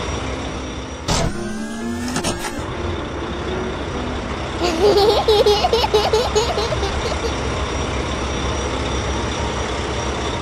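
Cartoon truck engine sound effect running steadily. About a second in comes a short rising whoosh, and around the middle a burst of wavering, warbling tones with fast high ticking.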